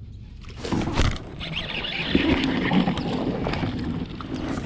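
A small hooked fish splashing at the surface as it is reeled in and swung out of the water on a rod, with a sharp knock about a second in.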